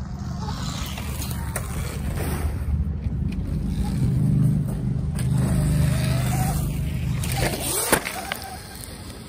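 Sur-Ron electric dirt bike riding on grass with its motor whine and tyre noise. It grows louder as the bike comes up to the camera and drops in pitch as it passes, with a sharp knock about eight seconds in.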